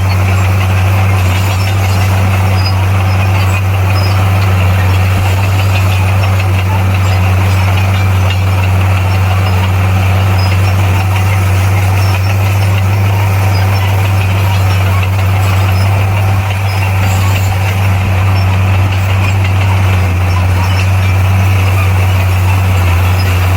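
Heavy diesel engine of a bulldozer running at a steady speed, a constant low drone with engine clatter above it.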